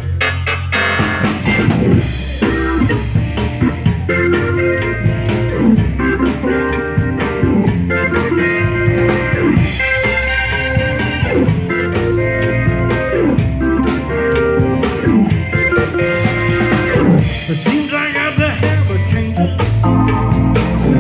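Live band playing an instrumental blues-rock groove: organ chords with electric guitar and a drum kit keeping a steady beat.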